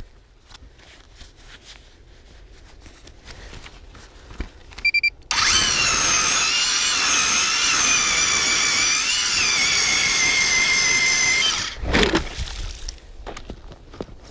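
A StrikeMaster battery-powered ice auger's electric motor whines for about six seconds as it bores into the ice. Its pitch wavers under load, then steadies, and it cuts off suddenly. Just before the motor starts there are two short beeps.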